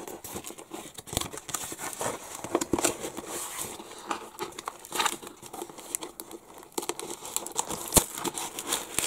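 Hands opening a taped cardboard mailer: the packing tape and cardboard crinkle and tear, with many irregular sharp snaps and crackles.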